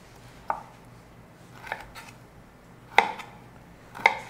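Kitchen knife cutting through a piece of fresh ginger and knocking on a wooden cutting board: four separate chops, about one every second, the third the loudest.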